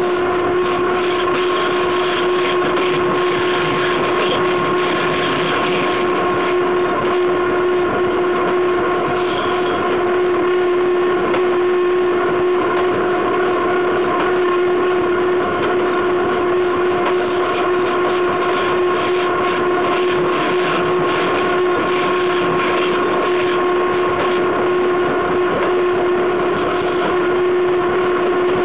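Freight train running at steady speed, heard from right beside its wheels: a continuous rush of wheels on rail and passing air, with a constant pitched whine held throughout.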